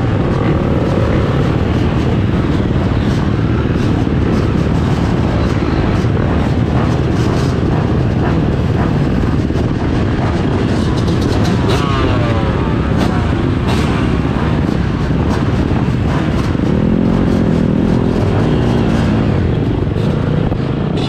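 Motocross bike engines running and revving over a constant heavy rumble, with rising and falling engine pitch about halfway through and again near the end.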